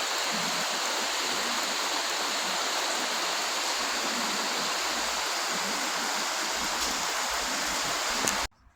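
Rushing water of a stream or small waterfall, a steady even hiss that cuts off suddenly near the end.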